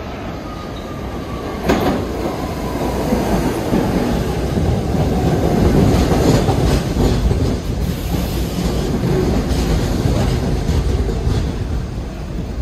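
New York City subway train running through the station, its wheels clicking over the rail joints. The rumble grows to a peak about halfway through and eases off slowly, with a faint whine that falls in pitch over the first few seconds.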